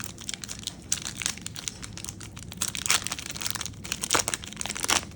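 Paper trading-card pack wrapper being torn open and crinkled by hand, in a dense run of crackles with a few louder crinkles about three, four and five seconds in.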